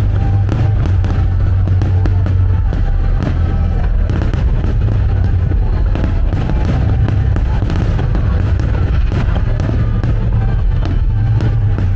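Fireworks going off in quick succession, many sharp bangs and crackles, over a loud music soundtrack with a heavy, steady bass.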